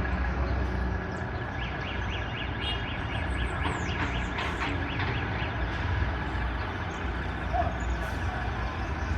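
Truck reverse alarm sounding a fast warbling siren, about three rises and falls a second, fading out a little after the middle, over the steady low rumble of the truck's engine.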